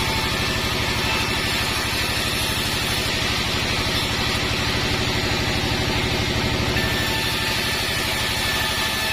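Band sawmill machinery running steadily, a rapid, even low throb like an engine with no change in pace.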